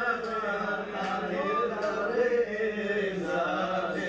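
Men's voices chanting a drawn-out, wavering sung line in Lebanese zajal style, the refrain taken up after the poet's verse.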